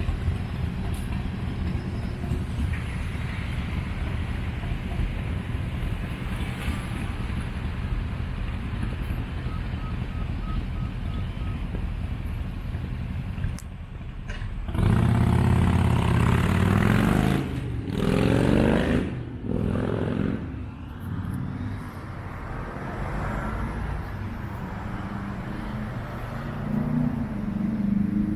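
Steady outdoor traffic rumble. About halfway through, a vehicle passes close by and is loud for roughly six seconds, with a rising pitched whine in it, then fades back into the background rumble.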